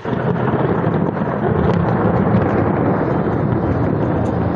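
A loud clap of thunder that breaks suddenly and rolls on as a long, deep rumble over the sound of heavy rain.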